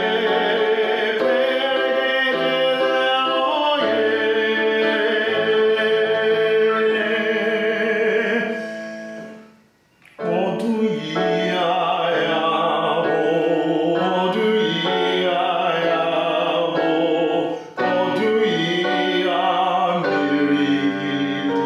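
Music: sustained singing with accompaniment, which fades out about nine seconds in. A new piece starts a moment later with held, wavering vocal notes.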